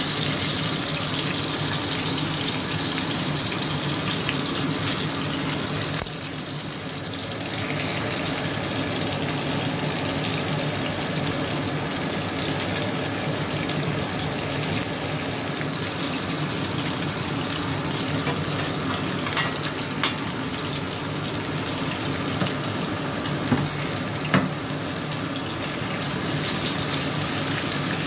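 Pieces of hairtail fish frying in a pan of hot oil: a steady sizzle with a few sharp clicks along the way.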